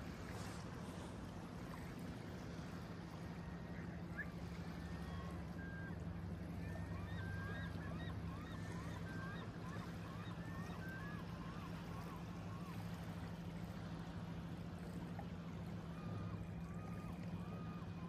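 Lake water lapping gently at a gravel shore, a steady soft wash. Through the middle and again near the end, birds call in runs of short repeated calls, two to three a second.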